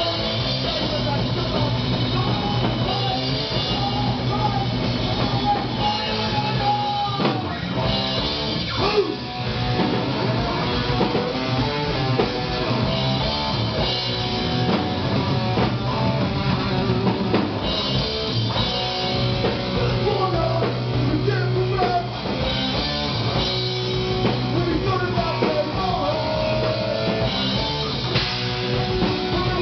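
Live rock band playing: electric guitars, a drum kit and a singer.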